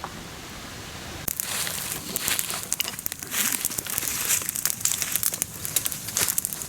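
Small wood campfire crackling, with dense irregular snaps and pops, starting abruptly about a second in after a faint hiss.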